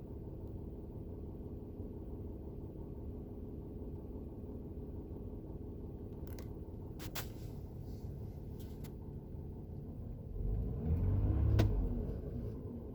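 Lexus RX330's 3MZ-FE 3.3-litre V6 idling steadily, with a few sharp clicks in the middle and a brief throttle blip about ten and a half seconds in that rises and falls back to idle. The owner is trying to diagnose a knock in this engine, heard more from the driver's side of the cabin than under the hood.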